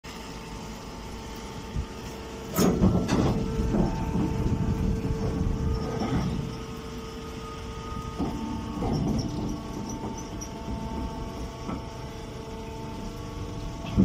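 Stationary hay baler running with a steady machine hum, broken by loud metallic knocks and clanks about two and a half and three seconds in, and lighter knocks later.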